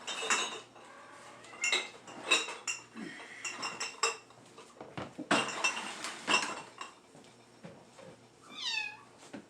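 Hard kitchen items clinking and clattering as they are picked up and set down, in several bursts. A cat meows once near the end.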